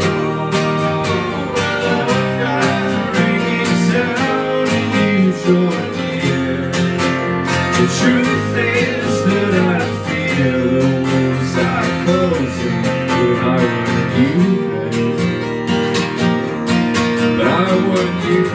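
Live drumless acoustic band: two acoustic guitars strumming steadily over an electric bass, with some singing.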